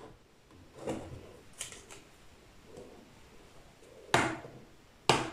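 A few scattered knocks and clinks of kitchen utensils and dishes being handled on a counter. The loudest knock comes about four seconds in.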